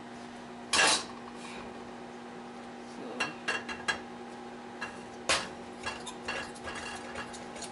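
Kitchenware clattering on a stovetop: a spatula and spoon knocking against a ceramic bowl and a metal oil sprayer being handled. It comes as a string of clinks and knocks, the loudest about a second in and another just past five seconds, over a steady low hum.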